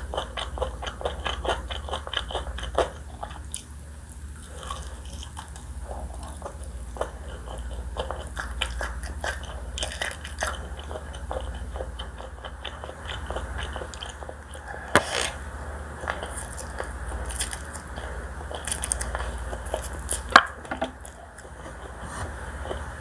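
Close-miked eating: a person chewing crunchy food with rapid crackling bites, and two sharp, louder clicks in the second half.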